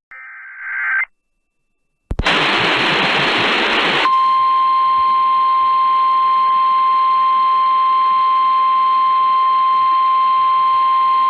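Weather radio alarm tone: a short buzzy burst, a second of silence and a click, then about two seconds of radio static. A single steady tone follows, held unbroken for about nine seconds. It is the alert tone that announces a warning message is about to be read.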